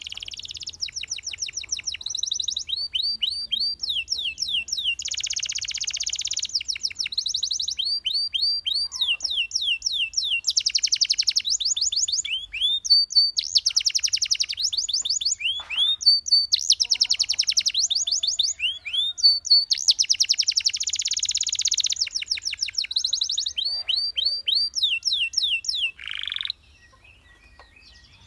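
Domestic canary singing a long song of fast trills, rapid runs of repeated sweeping notes alternating with denser rolling phrases. It stops about two seconds before the end.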